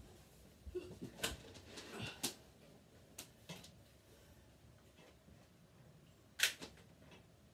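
Scattered clicks and light knocks of objects being handled, the sharpest about six and a half seconds in.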